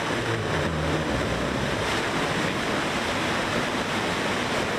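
New Shepard booster's BE-3 rocket engine firing on the launch pad just after ignition, a steady loud rushing noise as it builds thrust before lift-off.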